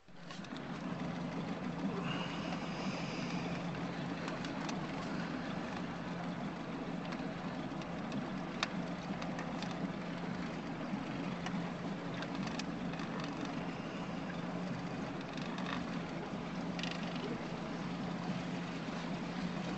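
Motorboat engine running steadily with the boat underway, a constant low hum over the rush of water and air. It cuts in suddenly at the start.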